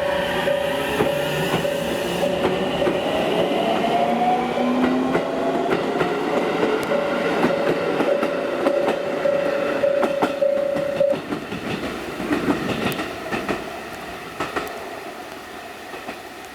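JR Central 313-series electric train pulling out, its motors whining up in pitch as it accelerates while the wheels click over rail joints, then fading as it moves away. A pulsed beeping tone repeats about twice a second and stops about 11 seconds in.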